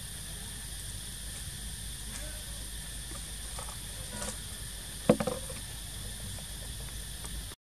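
Steady background hiss. About five seconds in comes a short, loud burst of crackling as a young long-tailed macaque grabs and handles a clear plastic bag.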